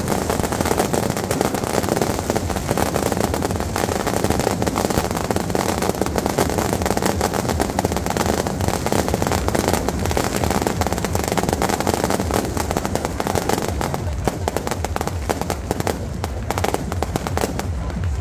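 Beehive-rocket fireworks barrage: a dense, rapid, continuous crackle of exploding rockets and firecrackers, like machine-gun fire, thinning out in the last few seconds.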